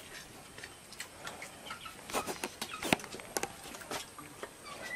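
Chickens clucking faintly, with many small scattered clicks and taps around them.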